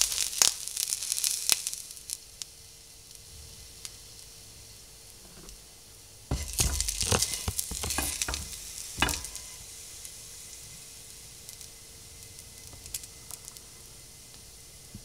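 Food frying in a hot pan: a burst of sizzling and crackling at the start that settles to a steady hiss, then a second flare of crackling and sizzling about six seconds in that dies back down about three seconds later.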